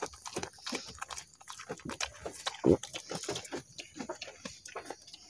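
A goat chewing melon rind: a run of irregular crunches and clicks, with one louder short sound about two and a half seconds in.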